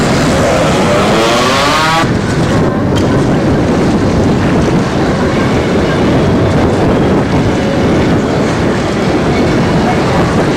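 Wind buffeting the camcorder microphone: a loud, steady rushing noise. For the first two seconds a warbling tone sits over it, cutting off abruptly.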